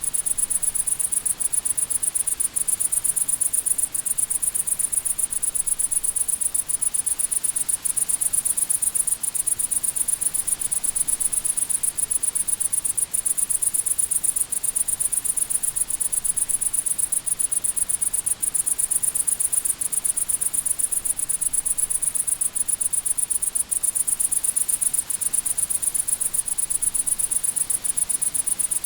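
Crickets chirping in a steady, unbroken high-pitched trill of rapid pulses.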